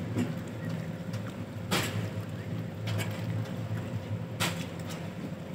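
Steady low engine drone from the docked passenger ship Umsini's machinery, with a few sharp knocks, the clearest about two seconds and four and a half seconds in.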